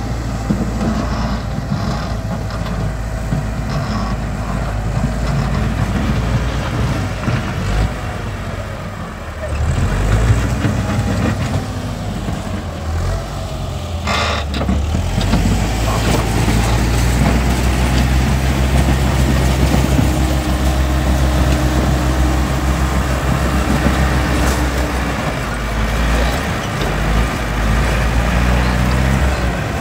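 Tractor engine running as it levels ground. Its note dips and picks up again about ten seconds in, with a brief sharp knock a few seconds later.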